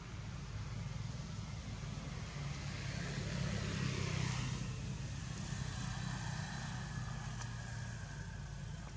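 Steady outdoor background noise with a low rumble, swelling and fading again about three to five seconds in.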